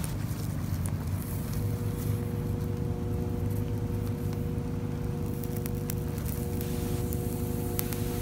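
Small handheld torch flame hissing steadily while solder is melted onto a copper antenna radial wire, with scattered crackles from the flux and a steady hum underneath.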